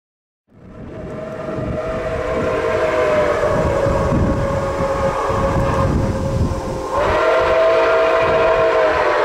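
Steam whistle of Nickel Plate Road 2-8-4 Berkshire steam locomotive No. 765 blowing long, steady blasts: one of about six seconds, a brief break, then another starting about seven seconds in.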